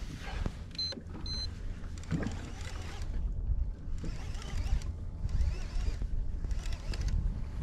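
Steady low wind-and-water rumble around a fishing kayak while a baitcasting reel is cranked, with faint scattered clicks. Two short high beeps sound about a second in.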